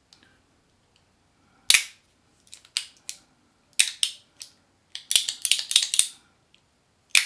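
Stainless steel magnetic fidget slider (Zero One EDC 01) being slid and flipped, its parts snapping into place with sharp metallic clicks. The clicks come singly and in quick runs, the densest a run of rapid clicks about five to six seconds in.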